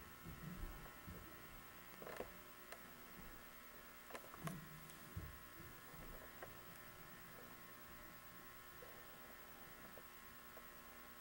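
Near silence: a steady faint hum with a few faint soft knocks and clicks.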